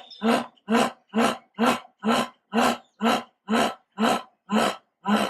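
A big cat's sawing call: a steady series of about eleven short, rasping grunts, roughly two a second.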